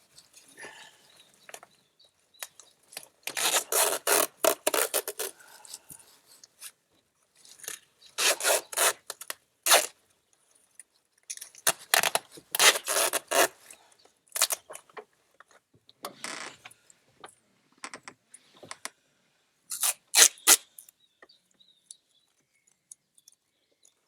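Bursts of scraping and rubbing, about five short spells with pauses between, the longest around three to five seconds in.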